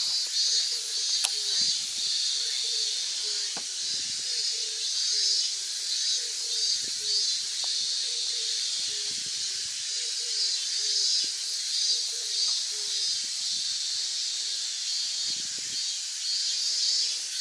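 A chorus of summer insects shrilling in the trees, a steady high-pitched pulsing hiss. Under it, a baitcasting reel whirs faintly in short spells as the line is wound in, stopping a few seconds before the end.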